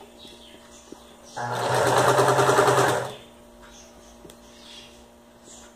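Electric domestic sewing machine stitching a seam through felt: about a second and a half in it speeds up into a short run of fast, even stitching and stops again after under two seconds. It is quiet around the run, with a few small clicks.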